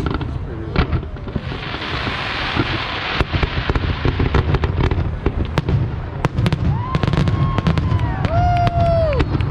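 Aerial fireworks show: a constant rolling rumble of shell bursts with many sharp crackling pops and bangs, and a hissing crackle about two seconds in. A few long, high calls rise over it near the end.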